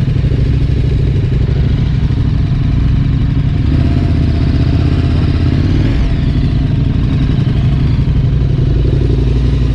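KTM 1190 Adventure's V-twin engine running steadily as the bike rides slowly along a sandy dirt track.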